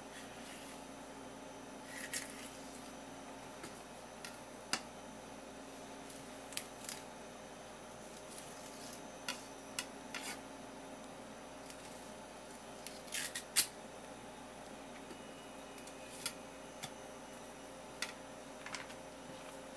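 Kitchen knife knocking and scraping against a wooden cutting board as a horse mackerel is filleted: scattered sharp clicks, a few in quick clusters, the loudest about two-thirds through, over a faint steady hum.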